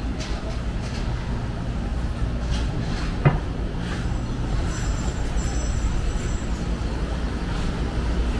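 City street ambience: a steady low rumble of road traffic. There is one sharp click about three seconds in, and faint high-pitched tones between about five and seven seconds.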